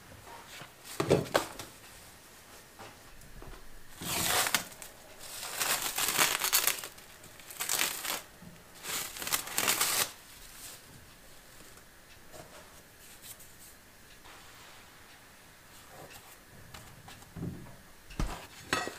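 A cloth tea towel covering a glass bowl of dough being handled and pulled off: rustling and crinkling in several bursts over the first ten seconds. Near the end come a couple of soft thumps as the risen dough is punched down.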